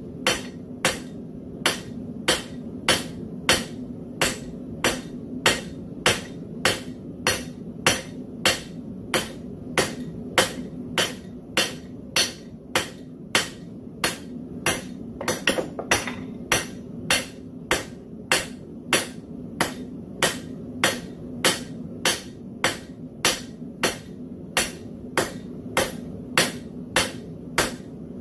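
Hand hammer striking a red-hot railroad spike on a steel anvil, a steady rhythm of about two sharp metallic blows a second: the spike being forged.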